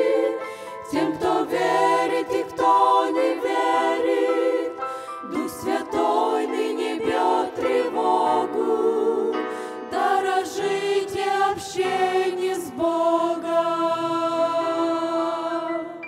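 Women's vocal group singing a hymn in close harmony into microphones. They end on a long held chord that fades away at the end.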